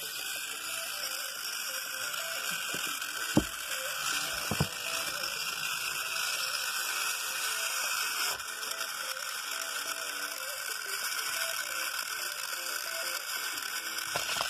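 Battery-powered toy train engines' small electric motors and plastic gears whirring steadily on plastic track. There are a couple of sharp clicks, about three and a half and four and a half seconds in.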